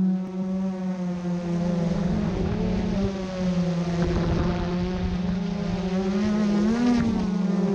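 Multirotor drone's propellers humming steadily, with a brief rise in pitch about seven seconds in.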